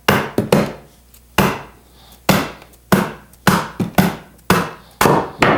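Rubber mallet knocking against a wooden chair frame, about a dozen sharp blows at irregular intervals, some in quick pairs, to drive the old glued joints apart for re-gluing.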